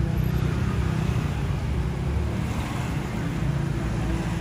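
Steady low rumble of a running motor.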